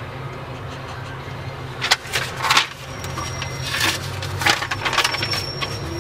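Crackling, rustling noises close to the microphone in two spells, about two seconds in and again from about four seconds, over a steady low hum at a cash machine. Faint high beeps from the machine sound twice while the PIN is keyed in.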